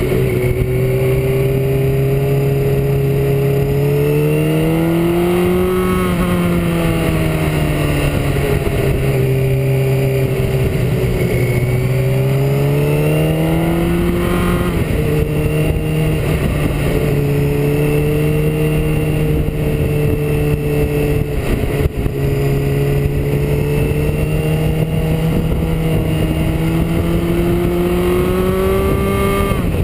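Motorcycle engine running under way, its revs climbing and dropping several times as it rides through bends, over a steady rush of wind noise.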